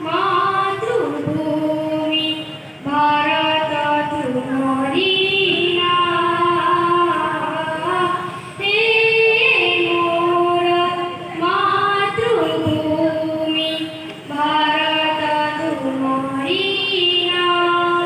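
A child singing a song solo into a microphone, amplified through a PA loudspeaker, in long held melodic phrases with brief breaks between them.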